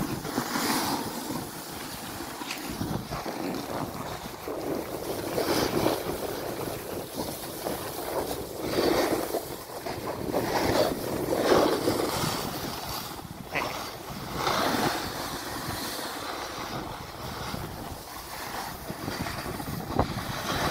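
Wind buffeting the microphone, a rushing noise that swells and falls in irregular surges every second or two.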